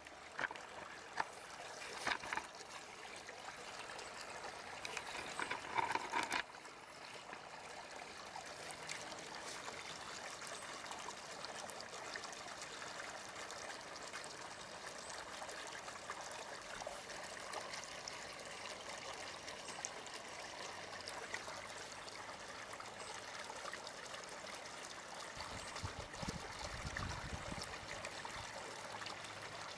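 A steady trickle of running water. For the first six seconds or so it is mixed with sharp clicks and crackles of slate chippings shifting under a cat rolling on them, and a short low rumble comes near the end.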